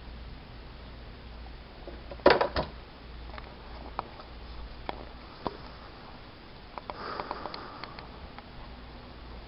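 Handling noises: a sharp double clatter about two seconds in, then a few scattered light knocks and a cluster of small clicks and rustles near the end, over a low steady hum.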